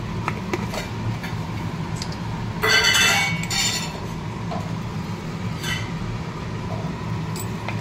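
A metal spatula and spoon clinking against a metal wok, with scattered light clinks and a louder burst of clattering scrape about three seconds in, over a steady low hum.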